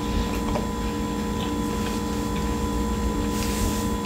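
Close-mouthed chewing of steak and mac and cheese, with a few faint wet mouth clicks and a short smacking hiss near the end, over a steady low hum.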